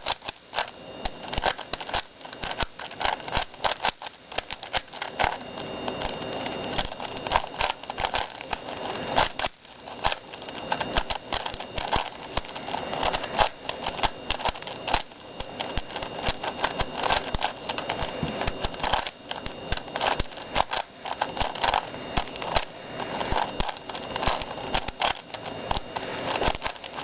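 Plastic 4x4 Rubik's cube being turned by hand: rapid, irregular clicking and clacking of its layers as they are twisted.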